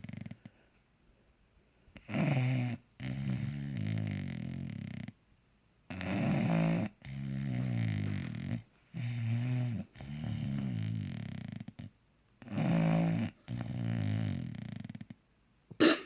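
Bulldog snoring loudly and wetly in its sleep: four slow breaths, each a short snort followed by a longer droning snore. A brief sharp sound comes near the end.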